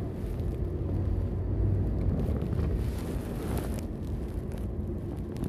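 Steady low rumble of a police patrol car's engine and road noise, heard from inside the cabin.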